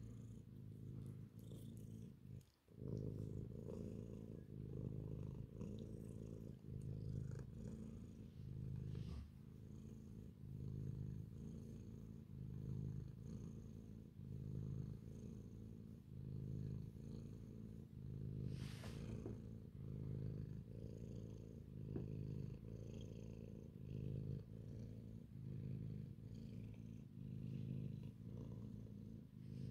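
Calico cat purring steadily while being petted, the purr swelling and easing with each breath about once a second, with a short break about two and a half seconds in.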